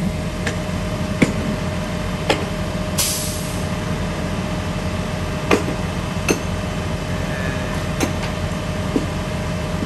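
Utility bucket truck engines running steadily, with a thin steady hum over them. Scattered sharp knocks, and a short hiss about three seconds in.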